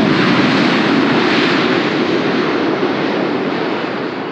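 Airbus A320-214 jet engines (CFM56-5B) running during the landing rollout, a loud, steady roar that swells in the first second or so and then slowly eases.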